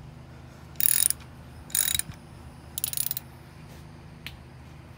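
Hand ratchet clicking in three short runs about a second apart as it tightens the engine's oil drain plug.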